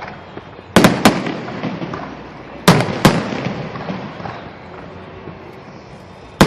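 Aerial fireworks shells bursting: two sharp booms close together about a second in, another pair about three seconds in, and one more near the end, each trailing off in an echoing rumble.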